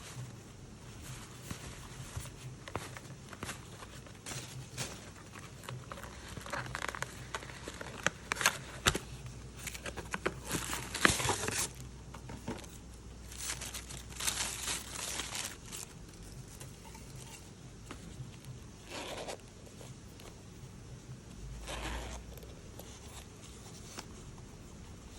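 Packaging being handled during an unboxing: paper and plastic rustling and crinkling, with scattered clicks and taps. The handling is busiest in the middle, with its loudest rustle about eleven seconds in.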